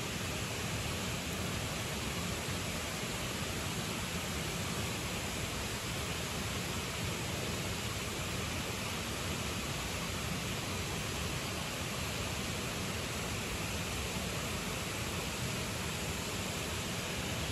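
Creek water rushing steadily, an even, unbroken hiss.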